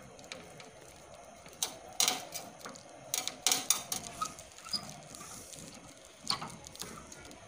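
Irregular sharp clicks, taps and scrapes of hand work on house wiring: a screwdriver and wires being worked at a plastic junction box. The clicks bunch together in the middle, with a few more near the end.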